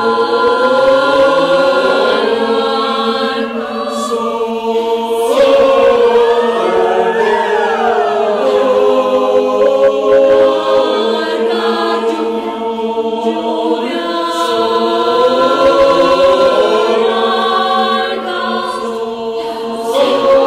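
Mixed a cappella choir singing a choral piece: a steady held note sounds under the other voices, whose pitches glide up and down in sweeping arcs twice, about a quarter of the way in and again past the middle.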